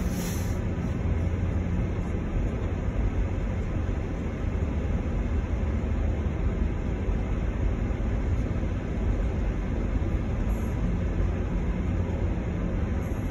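Steady low rumble inside a car's cabin as it drives slowly along a wet road: engine and tyre noise. A brief hiss comes right at the start.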